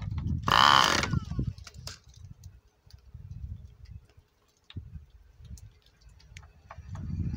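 Hand-held electric starter briefly cranking a Cox .15 Medallion glow engine for about half a second, a loud whine that falls in pitch as it spins down, without the engine catching. Small clicks and low wind rumble on the microphone follow.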